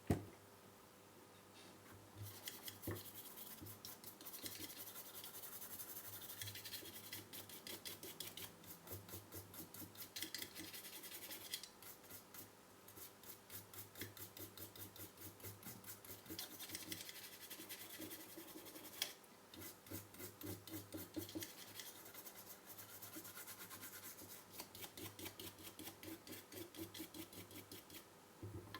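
Brush scrubbing a circuit board wet with solvent to wash off soldering flux: quick back-and-forth strokes, about three a second, with a few short pauses. A single sharp knock at the very start.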